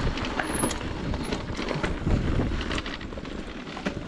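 Electric mountain bike descending a rough, rocky trail: tyres rolling and crunching over dirt and stones, with frequent clicks and rattles from the bike.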